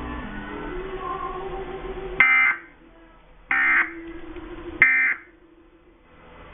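Emergency Alert System end-of-message (EOM) code: three short bursts of digital data tones, about 1.3 seconds apart, signalling that the alert message has ended.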